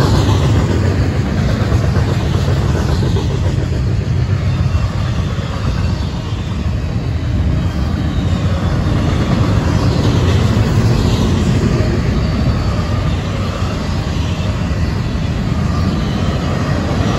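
Union Pacific double-stack intermodal freight train passing close by: a steady, loud rumble of well cars rolling over the rails.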